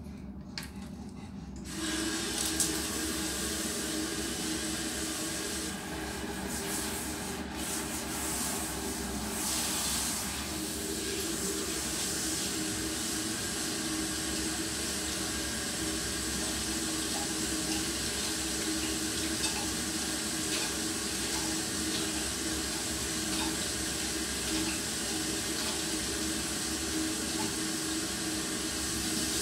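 Handheld shower head spraying water onto a dog's coat and a tiled floor, a steady rush that starts about two seconds in.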